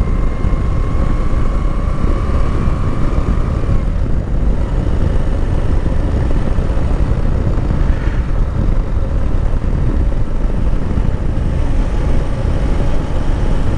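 Moto Guzzi V85 TT's air-cooled transverse V-twin running at a steady cruise, heard from the rider's position under heavy wind rush on the microphone. A faint thin whine sits over it for the first few seconds.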